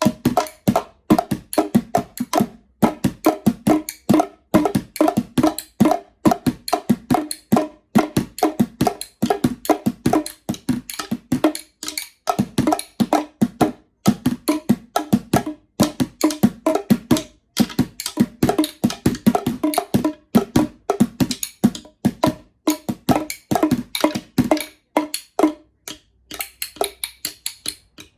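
Bongos struck rapidly and unevenly, several hits a second in runs with short pauses, getting softer near the end.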